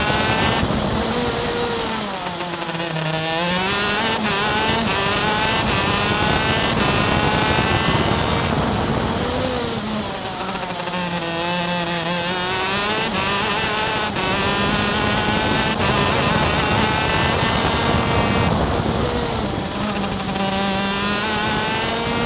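Superkart's two-stroke engine heard onboard at racing speed, running at high revs. Its pitch falls and climbs again three times, about two, ten and twenty seconds in, as the driver lifts off for corners and accelerates out of them.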